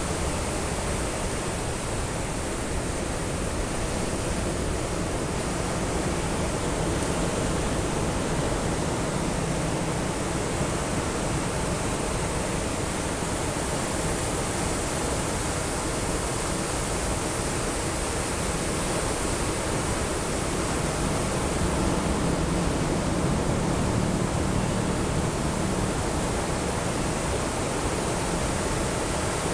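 Sea surf breaking and washing up on a beach: a steady rushing hiss that swells a little past the middle.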